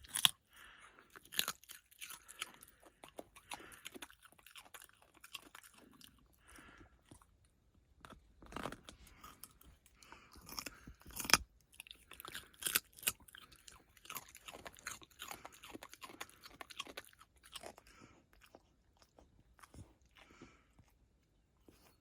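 A puppy crunching and chewing a raw carrot: irregular crisp crunches with quieter chewing between them, the loudest about eleven seconds in.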